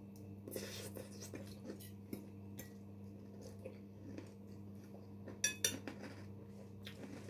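Fork or spoon clinking and scraping against a plate while eating, in scattered light touches with two sharper clinks about five and a half seconds in.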